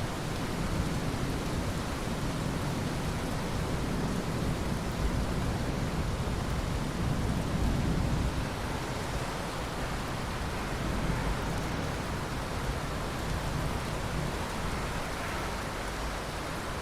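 Steady rain with a low rumble of thunder that swells a few seconds in and fades out again.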